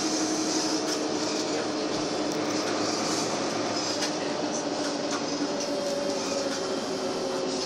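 Karosa B941E articulated city bus under way, heard from inside the passenger cabin: a steady engine and drivetrain drone with road noise, its pitch drifting a little.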